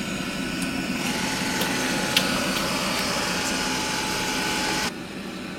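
Roborock S5 Max robot vacuum running at its highest suction setting: a steady motor and fan hum with a faint whine. It drops abruptly in level about five seconds in.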